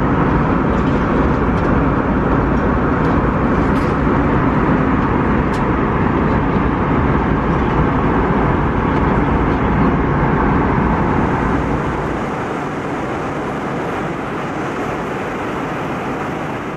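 Steady cabin noise of an Airbus A321neo in cruise: an even rushing of airflow over a deep engine rumble. About twelve seconds in, the deep rumble drops away and a lighter, thinner hiss carries on.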